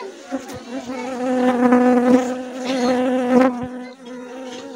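A dense cluster of honeybees on the comb buzzing: a steady, loud hum that swells louder through the middle and eases off near the end.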